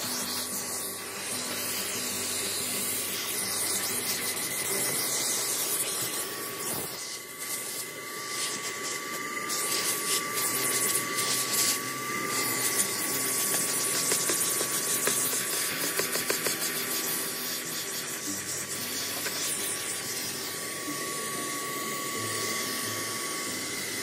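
Armor All vacuum cleaner running, a steady high motor whine over the rush of air through its hose as the nozzle works along a truck's door panel. From about a third of the way in there is a stretch of rapid clicking and rattling as grit is sucked up, and the whine wavers briefly.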